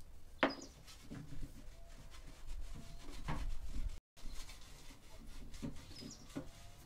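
Silicone pastry brush spreading melted butter over a metal baking tray: soft rubbing with a few light clicks and knocks, the sharpest about half a second in. The sound cuts out briefly about four seconds in.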